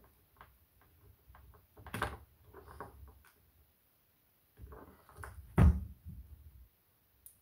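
A NOCO GENIUS5 battery charger and its cable being handled and the cable unwound: scattered knocks and rustles, with one sharp thump about five and a half seconds in.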